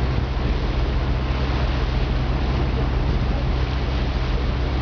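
A motorboat under way: a steady low engine drone under rushing water and wind noise on the microphone.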